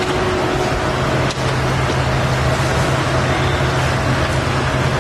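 Steady, loud cabin noise of a moving vehicle: a dense rushing noise with a constant low hum, broken by a single brief click about a second in.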